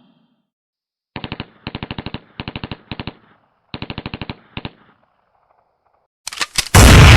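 Automatic gunfire sound effect: six short bursts of rapid shots, each a quick run of sharp cracks. Near the end a few single cracks are followed by a loud, sustained blast of noise.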